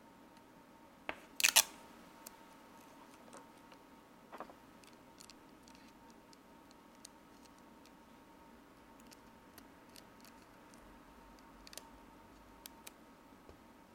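Hands handling a small paper sheet and a rubber carving block on a tabletop: a few sharp loud clicks about a second and a half in, then faint scattered ticks and taps. A faint steady whine runs underneath.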